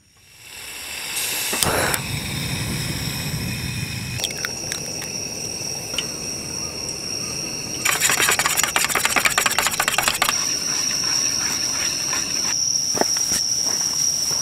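Chopsticks rapidly beating an egg against a metal tray, a fast clatter lasting about two seconds around the middle. Under it runs the steady high chirring of night insects.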